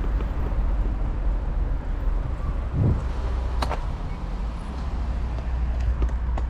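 Wind rumbling on the camera microphone while riding a bicycle, a steady low rumble with a short thump about three seconds in and a sharp click just after.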